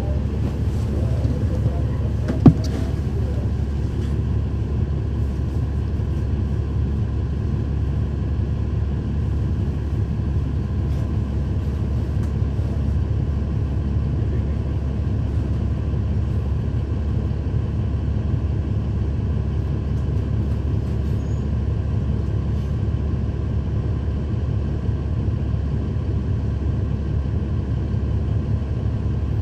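Cummins ISL9 diesel engine of a 2012 NABI 40-SFW transit bus running steadily, heard from inside the bus as a low drone. A single sharp knock comes about two and a half seconds in.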